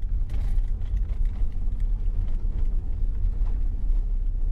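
Steady low rumble of a van's engine and road noise, heard from inside the cabin while driving.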